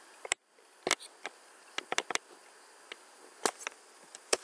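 About a dozen sharp, irregularly spaced clicks of a computer mouse and keyboard as a spreadsheet is edited, over a faint background hiss.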